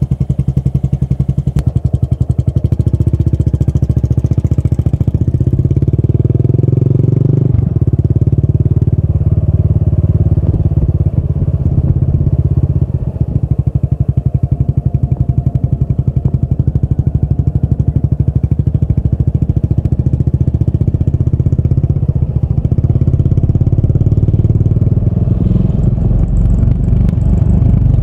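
Yamaha SR400's air-cooled 399 cc single-cylinder engine running through a Goods Tapered Cone slip-on muffler: a loud, even train of exhaust pulses. The note changes abruptly about seven seconds in, then holds steady.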